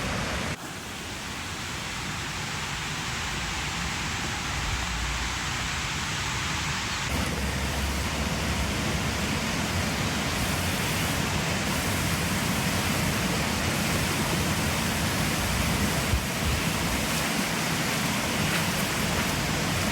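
Rushing water of a waterfall and its fast mountain stream: a steady, even gushing. The sound changes suddenly about half a second in and again about seven seconds in.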